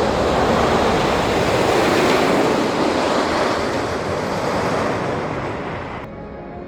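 American Eagle wooden roller coaster train rumbling along its track on an empty test run. The rumble fades as the train moves away, and about six seconds in there is a sudden cut to music.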